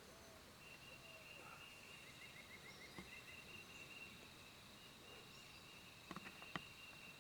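Near silence of quiet woods: faint high-pitched steady trilling that breaks off and resumes, a quick run of short chirps, and a few soft clicks near the end.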